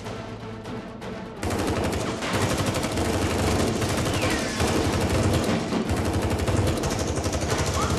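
Rapid automatic gunfire, a dense, unbroken stream of shots that starts about a second and a half in and keeps going.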